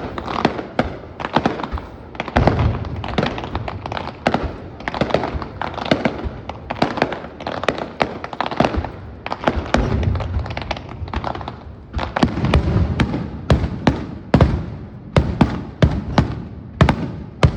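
Fireworks display: a dense run of sharp bangs and crackles, with several deeper booms of shells bursting spread through it.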